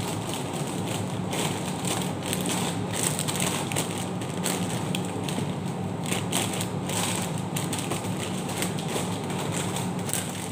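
Plastic snack wrappers crinkling and rustling as packets are handled and packed, a quick, irregular crackle, over a steady low hum.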